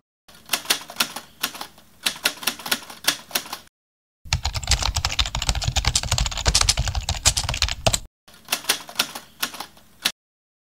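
Typing sound effect: rapid key clacks in three spells, each cut off abruptly, with the middle spell denser and louder than the others.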